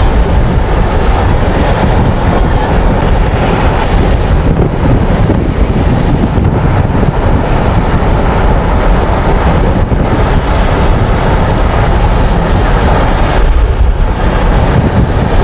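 Strong wind buffeting the microphone, a loud, steady rumbling rush with no break.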